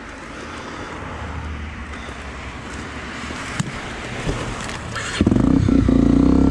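Honda XR250 Tornado trail bike's single-cylinder four-stroke engine idling low, then opened up sharply about five seconds in and held at higher revs as the bike pulls away. The riders say the engine is misfiring badly.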